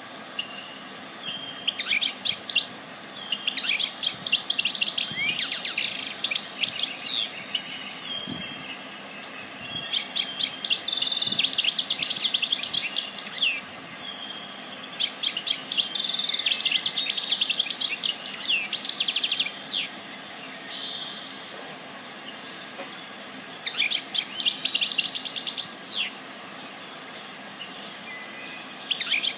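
Birds chirping and twittering in bouts of rapid chirps a few seconds long, with short pauses between them, over a steady high-pitched drone.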